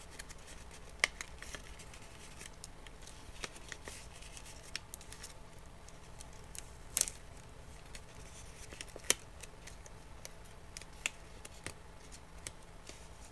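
Paper strips being handled and pressed together by hand: quiet, irregular crisp crinkles and clicks, the loudest about a second in, at about seven seconds and at about nine seconds.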